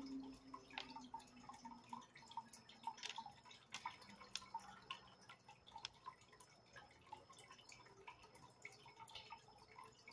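Aquarium water dripping and trickling faintly, with many small irregular ticks.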